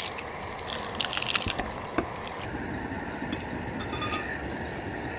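Light crinkling and rustling with scattered sharp clicks, as things are handled close to the microphone, over a steady outdoor background.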